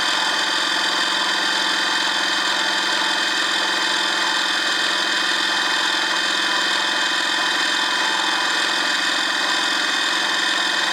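Chester benchtop milling machine running under load, its end mill side-cutting the edge of a mild steel plate. A steady whine from the motor and spindle over a constant cutting noise. The fresh, decent-quality cutter is cutting cleanly and throwing good chips.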